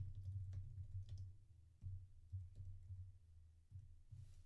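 Typing on a computer keyboard: a run of irregular key clicks as a command is entered.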